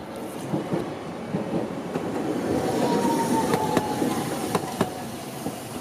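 Toden Arakawa Line tram running past, its rumble building to a peak about three seconds in. A faint thin whine sounds through the middle, and there are a few sharp clicks from the wheels.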